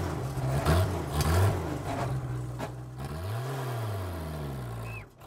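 A motor vehicle engine running, with one rise and fall in revs about three and a half seconds in and a brief drop-out near the end.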